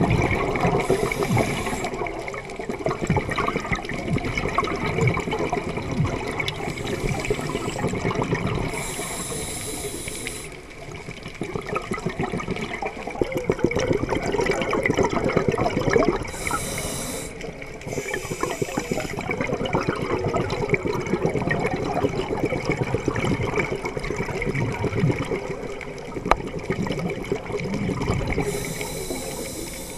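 A scuba diver breathing through a regulator underwater: a rushing hiss of breath and exhaled bubbles comes back every several seconds, over a constant churning water noise.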